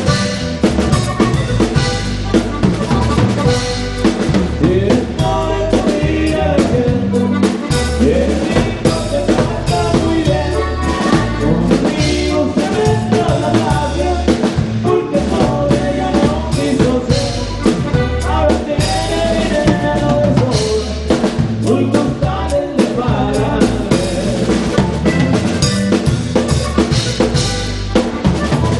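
Instrumental passage of a band playing a song, with a drum kit prominent: kick drum, snare and rimshots keeping a steady beat under a bass line and wavering melody lines.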